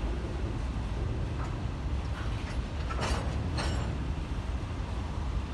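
Freight train of covered hopper cars rolling past, a steady low rumble with a few short, sharp metallic clanks, the strongest about three seconds in and again half a second later.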